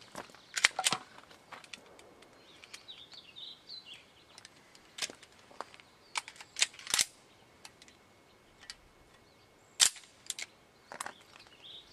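Gunshots at irregular intervals: a couple of sharp cracks about a second in, another near seven seconds and another near ten seconds, with fainter pops and clicks between them.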